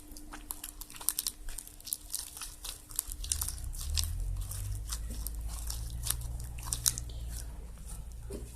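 Homemade glue-and-borax slime being mixed, making irregular sticky, wet clicks and crackles as the borax water works into it. A low steady rumble comes in about three seconds in.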